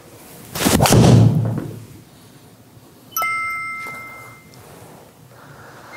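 A 3-wood strikes a golf ball off a hitting mat and the ball smacks into a golf simulator's screen. About three seconds in, the simulator gives a short electronic ding of two steady tones that fades out.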